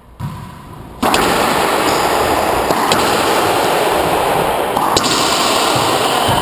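A loud, steady rushing noise starts abruptly about a second in and holds, with a few sharp smacks of the racquetball off the racquets and walls over it, about every two seconds.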